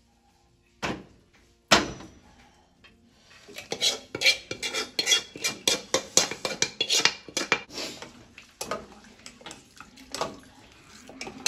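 A stainless steel pot set down on a gas stove's metal grate with two sharp knocks, then a steel ladle stirring kadhi in it, clinking and scraping quickly against the pot's sides for about four seconds before slowing to a few scattered taps.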